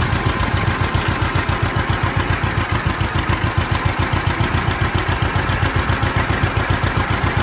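John Deere 520's two-cylinder engine running steadily, with the rapid, even putt-putt beat of a two-cylinder John Deere.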